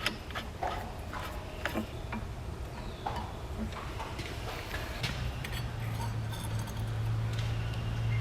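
Scattered light clicks and taps of metal parts and tools being handled. About five seconds in, a drill press motor starts and runs with a steady hum.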